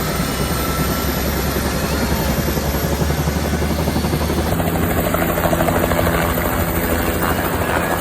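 Helicopter running with its rotor chopping steadily and its engine droning; the engine note changes about halfway through.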